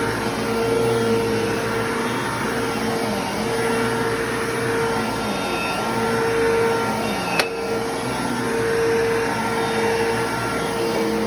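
Bissell Lift-Off bagless upright vacuum cleaner running steadily as it is pushed about, its motor tone wavering up and down. A single sharp click about seven seconds in.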